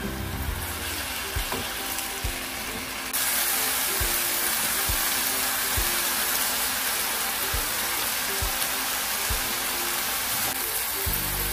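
Spicy pork, onion and green onion stir-fry sizzling in a nonstick pan as it is turned with a silicone spatula. The sizzle gets much louder about three seconds in. Background music runs underneath.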